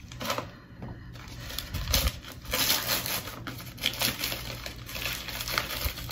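Paper wrapping crinkling and rustling in irregular bursts as it is handled and pulled open by hand, with a knock about two seconds in.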